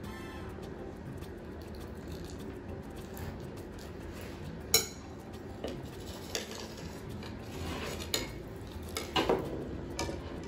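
Metal pie server clinking and scraping against a ceramic plate as it cuts through a soft flan and lifts out a slice. There are several sharp clinks, the loudest a little under five seconds in and a quick double clink near the end.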